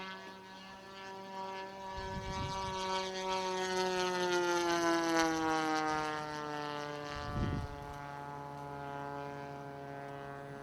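Radio-controlled model airplane engine flying past: it grows louder to a peak about halfway through while its pitch slides steadily down, then fades as it moves away.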